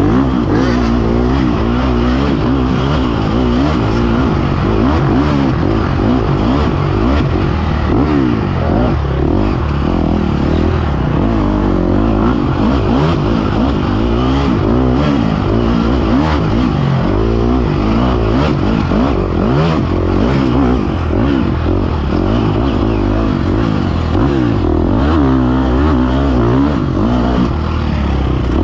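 Dirt bike engine being ridden hard, revving up and down constantly as the throttle is worked, its pitch rising and falling every second or two.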